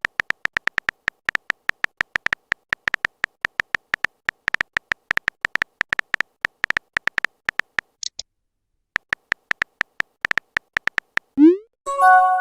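Phone keyboard typing clicks, several a second, breaking off briefly about two-thirds of the way through and then resuming. Near the end comes a short rising swoosh as a message is sent, followed by a chiming message alert.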